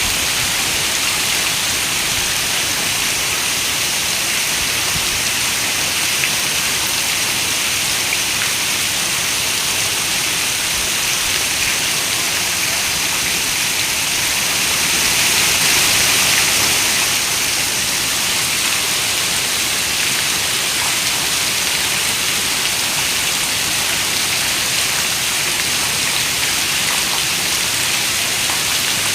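Steady rain, an even hiss, swelling a little about halfway through.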